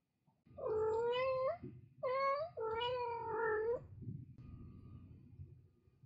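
A cat meowing three times in quick succession, long drawn-out calls that waver in pitch.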